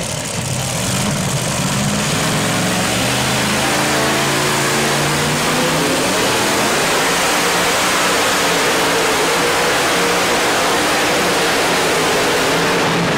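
Modified pulling tractor's engine winding up about a second in and then running flat out through a pull, loud and steady, echoing in the arena.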